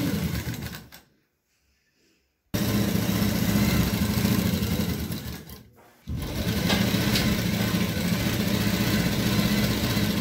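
Sewing machine stitching lace trim onto satin fabric in runs: a short run that dies away within the first second, a pause, then it starts abruptly about two and a half seconds in, slows and stops near six seconds, and starts again at once, running steadily to the end.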